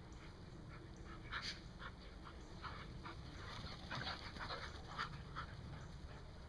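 Dogs panting as they run and play: a faint string of short, irregular breathy puffs that come thickest past the middle.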